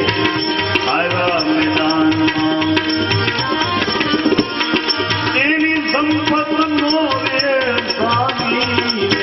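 Devotional bhajan music: a tabla keeps a steady rhythm under a sliding melody line over a held drone.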